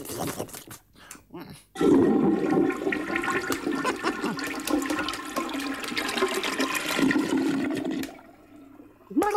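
Toilet flushing: a rush of water starting about two seconds in, running for about six seconds and then stopping, after a few short clicks.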